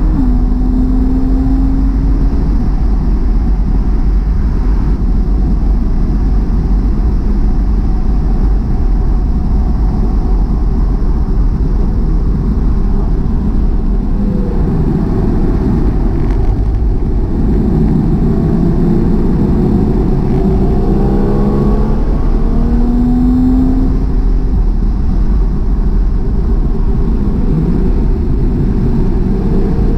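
Car engine with road and wind noise heard from inside the cabin on a track lap: a loud, steady low rumble, the engine note falling as the car slows, then rising again as it accelerates.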